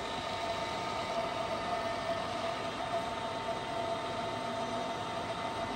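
Csepel RF 50/1250 radial arm drill running with its spindle on power feed at the maximum feed rate: a steady machine hum with a steady high tone.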